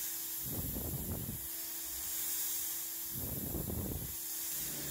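Mist coolant spraying with a steady hiss over the faint steady hum of a high-speed CNC milling spindle. A small end mill cutting aluminium comes in twice as rougher swells about a second long, once near the start and once past the middle.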